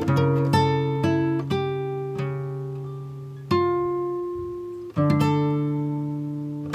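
Background music of a plucked string instrument: single notes and chords struck and left to ring and fade, with fresh chords about three and a half and five seconds in.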